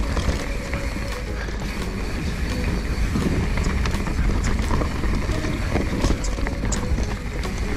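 Mountain bike riding down a rough dirt trail, heard from an on-bike camera: a steady low rumble of wind and tyre noise on the microphone, with frequent clicks and rattles from the bike over roots and rocks.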